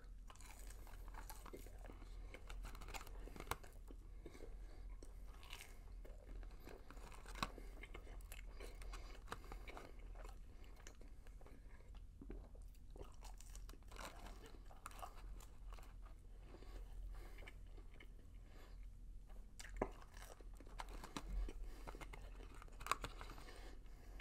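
Faint close-up chewing and biting of McDonald's Chicken McNuggets, with scattered small clicks of the mouth and the odd louder one.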